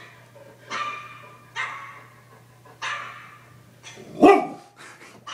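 Dogs barking: three higher, thinner barks about a second apart, then one much louder, deeper bark about four seconds in.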